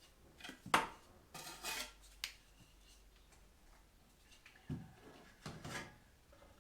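Bricklaying trowel working mortar on brick: separate sharp metallic clinks and short scrapes. There is a loud clink about a second in, a couple of scrapes after it, and more scraping and knocking near the end.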